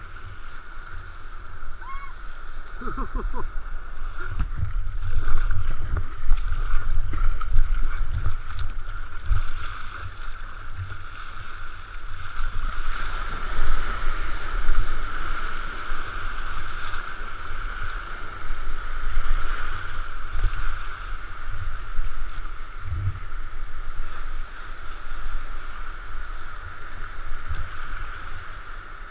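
Sea kayak surfing a breaking wave in to the beach: water rushing and foaming around the hull, with wind buffeting the camera microphone. The rush is loudest about halfway through as the wave breaks around the boat, then eases into the wash of shallow surf near the end.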